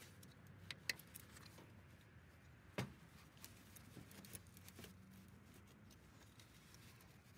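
Faint, irregular clicks and taps of hands and parts being worked around a newly fitted alternator, with the loudest tap about three seconds in, over near silence.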